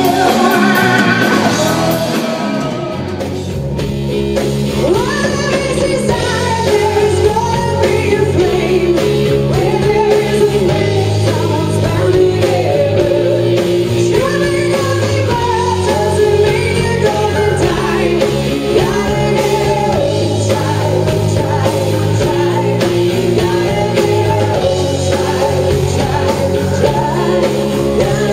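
Live rock band playing, with a woman singing lead over electric guitar, bass guitar, drums and keyboard. The sound dips briefly about three seconds in, then the band plays on at full level.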